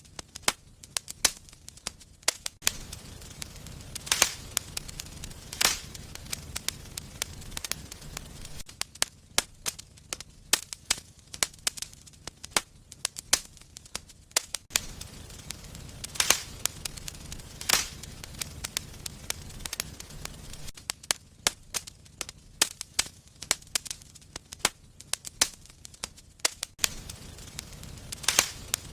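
Wood fire burning in a fireplace, crackling with frequent small pops and a few louder sharp snaps. A low rumble under the crackle comes and goes every few seconds.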